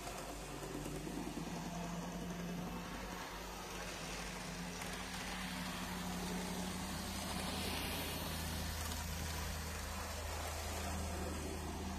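Small electric motor of an N gauge model locomotive running steadily, a low hum with a few steady low tones that drift slightly in pitch.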